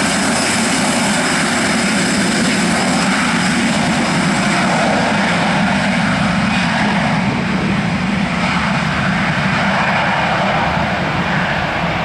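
An Airbus A320-214's twin CFM56 jet engines running loud and steady at high thrust as the airliner starts its takeoff roll. The high-pitched whine fades from about halfway through as the aircraft turns away.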